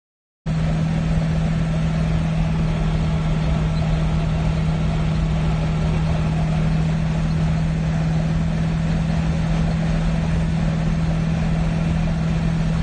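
1932 Ford coupe cruising at a steady highway speed, heard from inside the cabin: a loud, even engine and exhaust drone with one unchanging low hum, over wind and road noise. It cuts in abruptly about half a second in.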